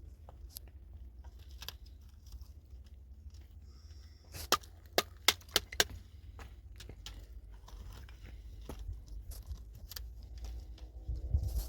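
Five sharp knocks in quick succession, about four and a half seconds in, over a low steady rumble.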